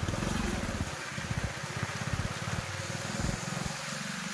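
Motorcycle engine running as it rides along a rain-soaked street, its low, rapid firing pulses rising and easing, under a steady hiss of rain and tyres on the wet road.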